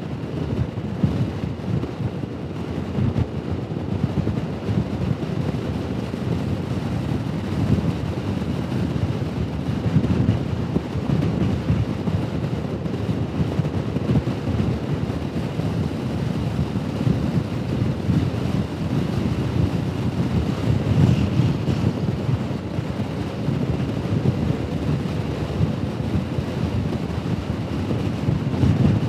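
Wind rumbling steadily over a helmet-mounted microphone while riding a Honda Forza 125 scooter at road speed, with its single-cylinder engine running underneath.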